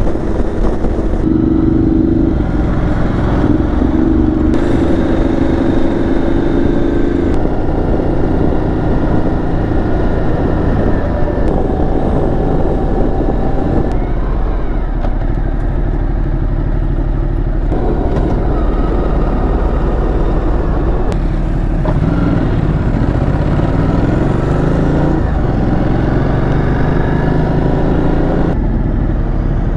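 Ducati motorcycle under way, its engine running with wind rushing over the on-bike camera. The engine note rises in pitch several times as the bike accelerates, and the sound changes abruptly a few times where road clips are cut together.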